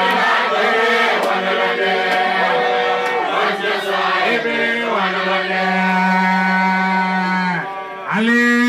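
Church congregation singing together in long, held notes. The singing breaks off shortly before the end, and a single loud voice with a rising and falling pitch comes in.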